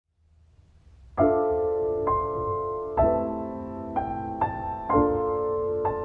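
Background piano music: notes and chords struck about once a second, starting just over a second in, each ringing on and fading.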